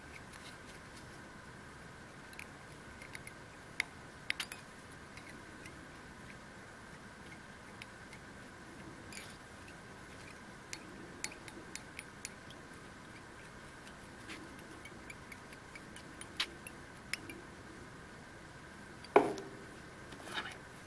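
Scattered small clicks and ticks of fly-tying handling, thread and bobbin worked around a hook in a vise, over a faint steady hum, with one louder knock near the end.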